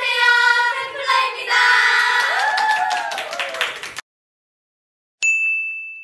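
Nine young women calling out a greeting together in unison, held on pitch like a chant, with hand clapping mixed in. After about four seconds it cuts off into silence, and a second later a single steady high tone comes in.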